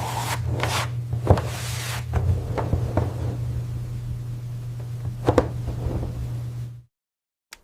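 A steady low hum with a handful of sharp clicks and knocks over it; the hum cuts off abruptly near the end.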